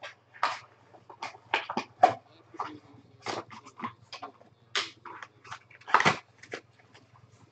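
Foil trading card pack wrappers being torn open and crinkled: irregular sharp crinkles and rustles, loudest about two seconds and six seconds in, over a faint low hum.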